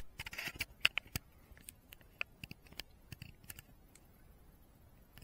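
Light clicks and taps from fingers handling a RunCam ThumbPro action camera, heard close through the camera's own built-in microphone: a quick flurry in the first second, then scattered ticks that thin out about three and a half seconds in.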